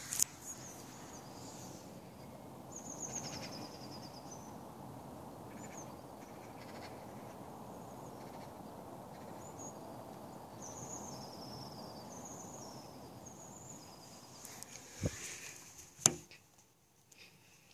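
Outdoor suburban ambience: a steady low background rumble with small birds chirping in short, high phrases. A few sharp knocks from the phone being handled come at the start and again about fifteen to sixteen seconds in.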